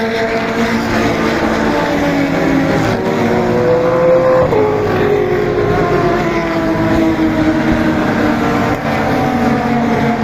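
Several 1990s-era Super Touring race cars at racing speed, their high-revving engines overlapping. The engine notes climb in pitch, one drops sharply about four and a half seconds in, and the notes then slide slowly downward as the cars go by.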